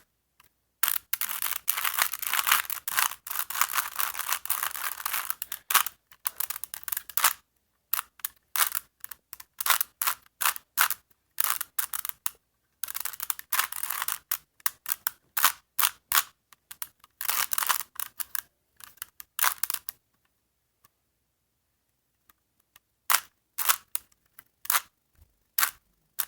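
Plastic 3x3 Rubik's Cube being turned by hand: rapid clattering clicks of its layers in bursts of several seconds, broken by pauses, the longest about three seconds long near the end.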